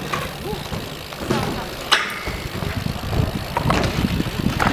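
BMX bikes rolling on skatepark concrete, an uneven rumble, with a sharp clack about two seconds in.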